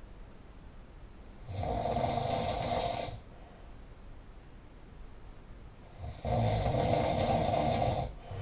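A person snoring loudly: two long snores, one about one and a half seconds in and the next about six seconds in, each lasting a little under two seconds, with quieter breathing between.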